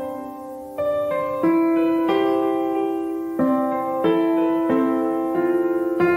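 Background piano music: a slow melody of single notes and chords, each struck and left to ring and fade, with a new one roughly every second. Near the end a note wavers quickly, like a trill.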